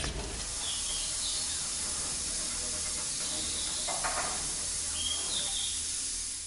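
Steady hiss of rain falling outdoors, with a few short bird chirps.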